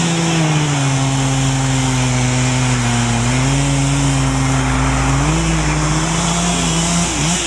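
Chainsaw running at high speed in a cut through a large oak; its pitch drops about a second in as the saw loads up, then rises again after about five seconds.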